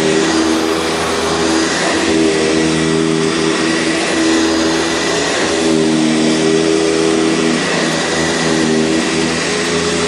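Sanitaire SC679 commercial upright vacuum cleaner running steadily, its motor hum shifting slightly in pitch every second or two.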